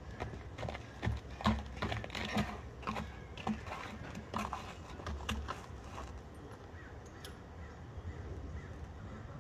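A Thoroughbred horse walking on packed dirt, its hoofbeats landing as irregular knocks; they are loudest in the first six seconds, then grow fainter.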